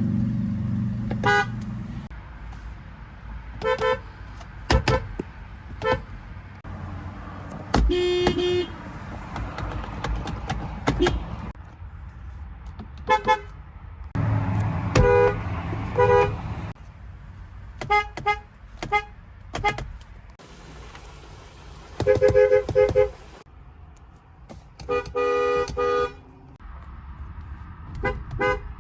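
Car horns from several different cars sounded one after another: a dozen or so short toots of differing pitch, with two longer blasts in the second half.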